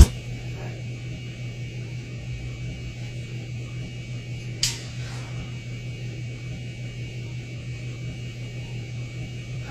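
Steady low electrical hum, with one sharp click about halfway through and a fainter one just after it.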